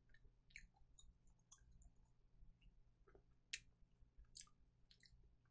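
Faint, wet mouth clicks and lip smacks from slowly chewing the last bite of fried chicken close to the microphone, with a few sharper clicks over a low room hum.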